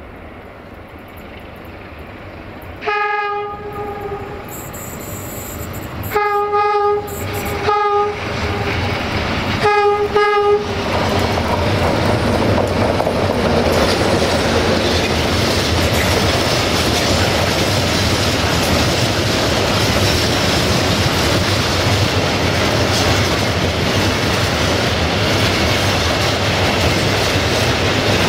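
Horn of a CFR class 060-DA (Sulzer) diesel-electric locomotive sounding a series of blasts as the freight train approaches: the first about three seconds in, then several shorter ones up to about ten seconds. After that the train passes close by, and a long string of loaded open freight wagons rolls past with steady wheel clatter on the rails.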